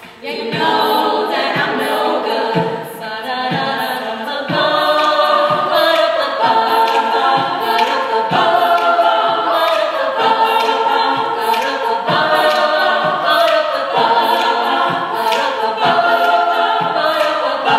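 All-female a cappella group singing: a solo voice over sustained backing voices, with vocal percussion keeping a steady beat.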